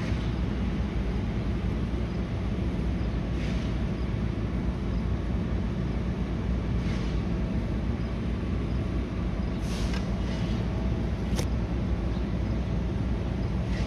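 Steady low background rumble, with a few faint brief noises, the sharpest a click about eleven seconds in.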